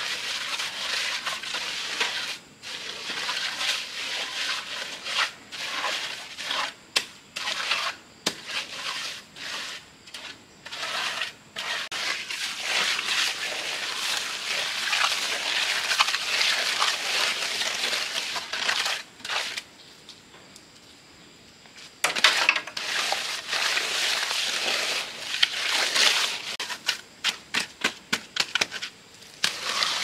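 Sand and cement being worked with hand tools: repeated gritty scraping and crunching strokes, with a pause of about two seconds a little past the middle.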